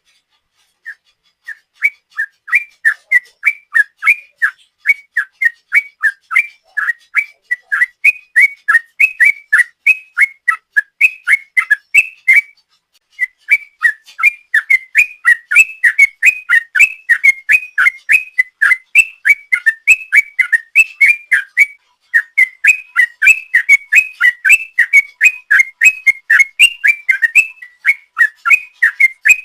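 Yellow-vented bulbul (trucukan) singing a long, fast 'ropel' run of clear whistled notes, several a second. The song starts about a second in and breaks off briefly twice.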